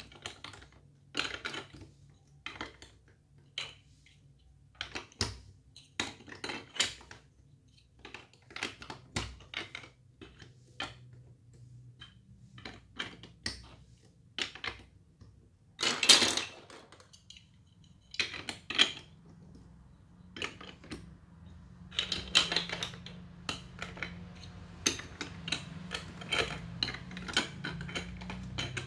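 Plastic Lego Duplo bricks clicking and clacking as they are picked up, set down and pressed onto a baseplate and onto each other, in irregular clicks with a louder clatter about halfway through.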